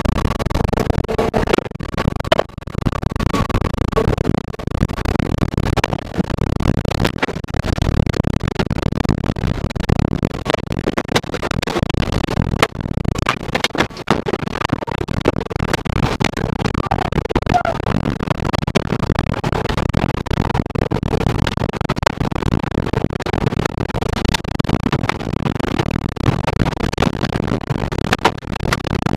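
Violent tornado wind blowing hard and buffeting the armored intercept vehicle, with many sharp knocks of debris striking the vehicle's body.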